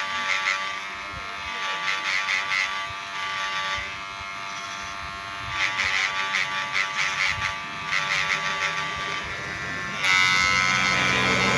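Cordless KIKI hair clipper with a freshly sharpened stainless blade running: a steady electric buzz that brightens and rasps in waves every few seconds. Near the end a louder sound, likely music, comes in over it.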